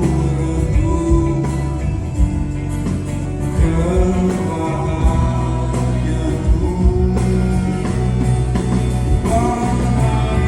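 A singer with a live band, singing a melody over bass and drums during a concert sound check.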